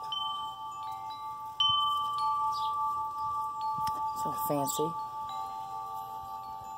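Wind chimes ringing: several long, steady metal tones hanging on, with a fresh, louder strike about one and a half seconds in.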